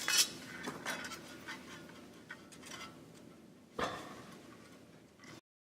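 Small clicks and ticks of camera parts being handled while a shutter unit is fitted into a Phase One DF camera body, with a sharper click just after the start and another about four seconds in.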